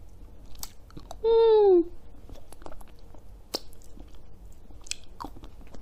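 Woman eating a heart-shaped lollipop with scattered short, wet mouth clicks and smacks. About a second in she gives a loud hummed "mm" that falls slightly in pitch.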